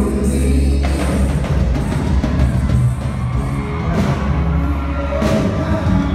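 Live band music played over a theatre PA: a sustained, dark synth and bass bed with a few loud drum hits struck well apart, about a second in and again near four and five seconds.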